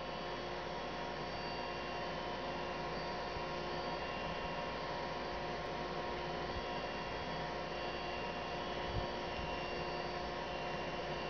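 A steady, unchanging hum with several steady tones over a hiss, with one brief low thump about nine seconds in.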